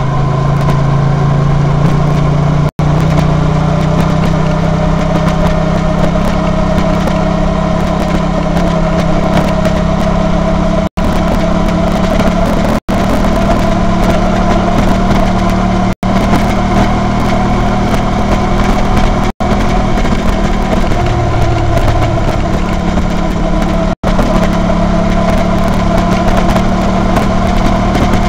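Honda VT250F's V-twin engine running steadily under way, its note shifting in pitch a few times. The sound cuts out for an instant several times.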